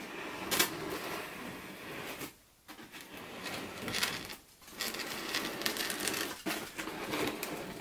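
A large, hard block of cured expanding foam being turned around on a wooden tabletop, scraping and rustling against the table and the hands in several bouts, with short pauses about two and a half and four and a half seconds in.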